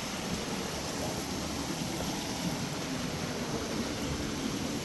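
Steady rush of flowing water from a waterfall stream.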